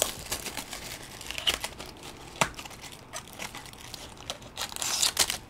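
Plastic wrap and foil trading-card packs from a Bowman Sterling baseball box crinkling and rustling as they are handled and opened, in scattered short crackles with a louder burst of crinkling near the end.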